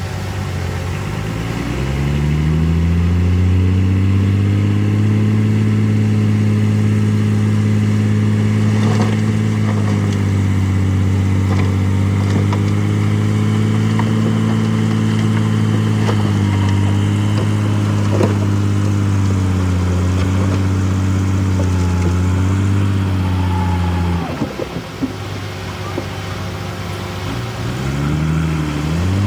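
Shantui DH17C2 bulldozer's diesel engine revving up over the first few seconds, then holding high revs steadily. It drops back abruptly about 24 seconds in and revs up again near the end.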